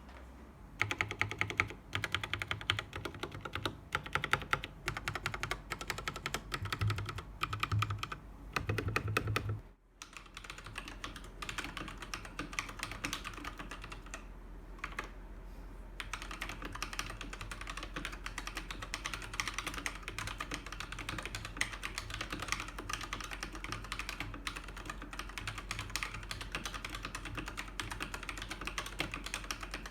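Akko 3087 mechanical keyboard with pink switches being typed on: key clicks in short runs for the first ten seconds, then, after a brief break, fast continuous typing.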